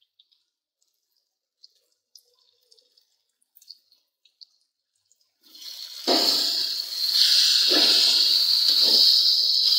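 Faint small ticks, then a loud steady sizzling hiss about five and a half seconds in, as a slotted steel spoon stirs sauced onions and bitter gourd in the hot pan, with a scraping stroke about once a second.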